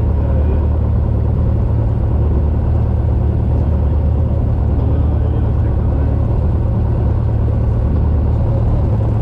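Cessna 172's piston engine and propeller running, heard from inside the cockpit as a steady, even drone.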